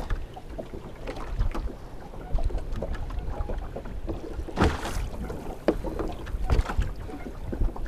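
Sea water lapping and slapping against the hull of a small wooden boat, with wind on the microphone and scattered small knocks; a louder rush comes about halfway through.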